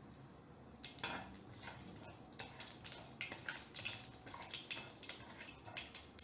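Cumin, mustard seeds and urad dal starting to sizzle and crackle in hot oil in a wok, stirred with a spatula: a tempering coming up to heat. The crackle begins about a second in and grows busier toward the end.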